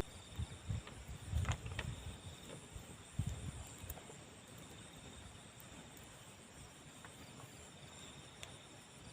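Faint, steady chirring of crickets or other insects, with a few soft knocks in the first few seconds.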